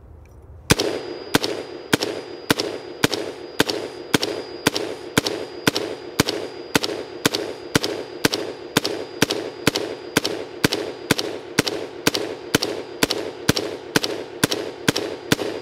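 Brownells BRN-Proto AR-15 replica rifle firing 5.56 mm M193 ball semi-automatically: a steady string of about thirty shots, roughly two a second, starting just under a second in.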